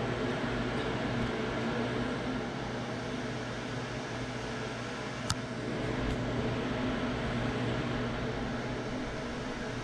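Steady machine hum with a hiss, and one sharp click about five seconds in.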